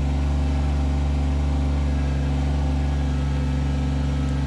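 Kubota BX25D compact tractor's three-cylinder diesel engine running steadily at an even speed.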